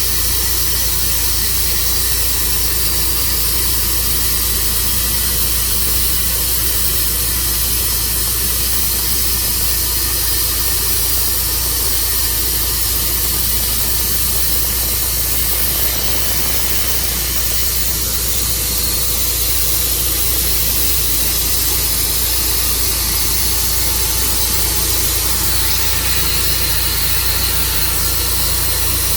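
Tru-Cut sawmill running steadily as it saws through an elm log: an even engine drone with a constant hiss over it, unchanging throughout.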